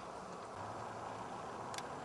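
Steady outdoor rushing noise with a low hum, picked up by a camcorder's built-in microphone, and one short sharp click near the end.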